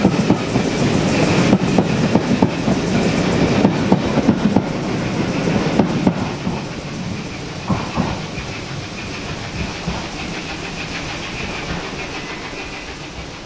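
Passenger coaches rolling past and away along the track, their wheels clacking over the rail joints, the clatter and rumble fading steadily after about six seconds. A thin high ringing lingers until near the end.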